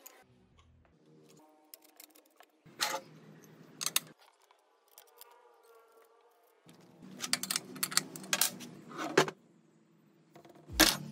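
Handling noises of hand work: scattered sharp clicks and knocks with some scraping, busier from about seven seconds in.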